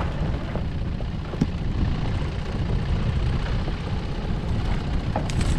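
Strong wind buffeting the microphone, a steady, uneven low rumble, with a small tick about a second and a half in.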